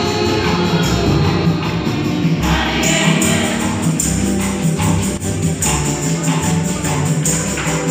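Church choir and congregation singing a lively gospel hymn, with percussion keeping a steady beat.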